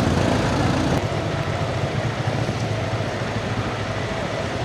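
Motorcycle engine running at low speed with a steady low hum, its level dropping slightly about a second in.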